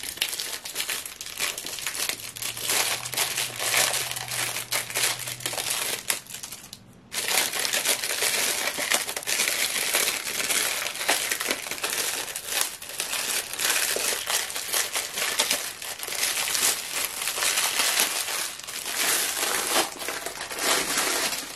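Clear plastic wrapping crinkling and rustling as it is handled and pulled off a rolled canvas, with a brief pause about seven seconds in.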